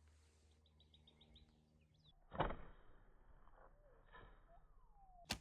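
An arrow shot from a 50 lb Osage orange self bow: one sharp thump of the released string about two and a half seconds in, then a short sharp click near the end. A short run of bird chirps comes about a second in.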